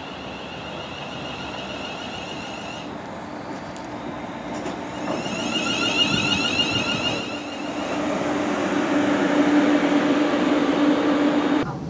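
Class 350 Desiro electric multiple unit pulling into the platform and slowing to a stop, its running noise growing louder as it draws alongside. A high whine comes and goes early on and again midway. A lower steady whine builds through the second half and cuts off just before the end as the train halts.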